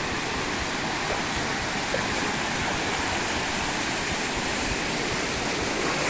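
Surf washing up over the sand at the water's edge, a steady even rush of water with no let-up.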